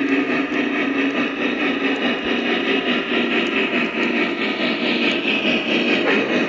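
Lionel Vision Line O-gauge model of the Norfolk & Western A-class 1218 steam locomotive playing its steam-engine sound effects through its onboard speaker, a steady sound that does not let up.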